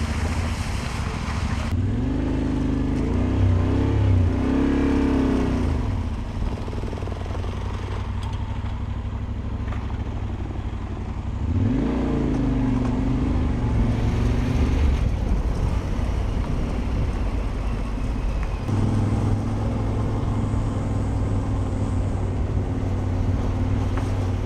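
Motorcycle engine riding along, revving up and easing off twice, then running at a steady pitch for the last few seconds.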